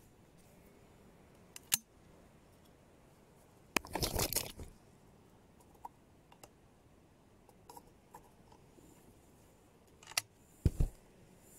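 Sparse handling noises close to the microphone in a quiet hide: a sharp click, a brief rustle about four seconds in, then another click and two low thumps near the end.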